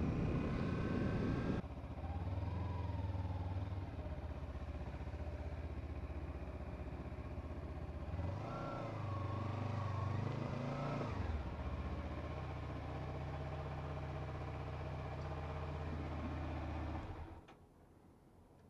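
Kawasaki Ninja 300 parallel-twin engine idling in a small shed, revved up and back down twice about eight to eleven seconds in, then switched off near the end. It opens with a second or two of riding noise.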